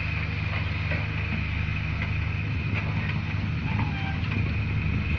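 Diesel engine of heavy earthmoving machinery running steadily: a constant low drone with a faint higher whine above it.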